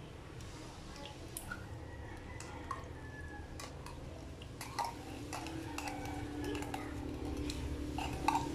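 Metal spoon scraping and clinking against the inside of a tin can while scooping corned beef out into a bowl of beaten eggs: a string of scattered clicks and scrapes.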